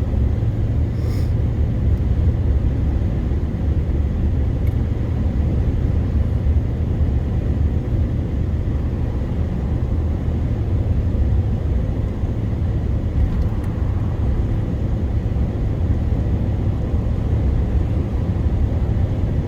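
Pickup truck driving at road speed, heard from inside the cab: a steady low rumble of engine and tyre noise.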